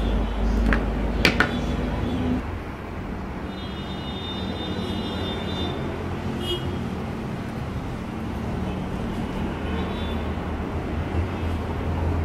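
Needle-nose pliers give two sharp clicks about a second in while stripping the insulation off a thin wire. A steady low background rumble runs underneath.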